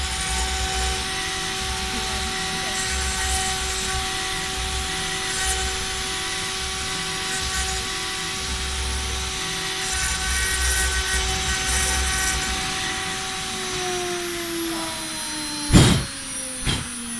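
CNC router spindle running with a steady whine as its bit carves a wooden cylinder on a rotary axis, with a low rumble that comes and goes. Near the end the whine falls in pitch as the spindle spins down, then two sharp knocks about a second apart.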